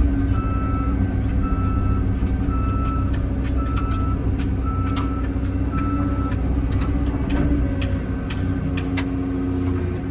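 Excavator diesel engine running steadily, with a backup alarm beeping about once a second until about six seconds in. Scattered sharp clicks and knocks sound over it.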